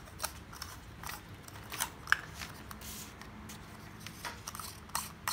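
Irregular small clicks and scrapes of an incandescent bulb's metal screw base being turned by hand into a black plastic screw-in lamp holder, with a sharper click about two seconds in.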